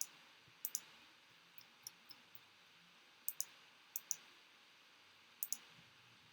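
Quiet computer mouse clicks: about five sharp clicks, most heard as a quick press-and-release pair, spaced a second or so apart, with a couple of fainter ticks between them.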